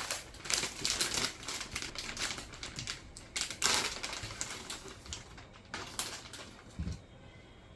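Rapid, irregular clicking and rustling, thickest in the first four seconds with one louder rustle in the middle, thinning out near the end.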